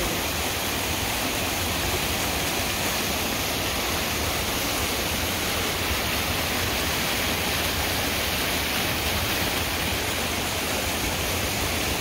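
Waterfall pouring down a mossy rock face into a pool, a steady, even rush of falling and splashing water close by.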